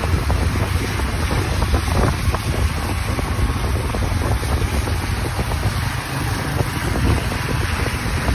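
Wind buffeting the microphone of a moving motorbike: a steady low rumble under an even hiss, as from riding on a wet road in the rain.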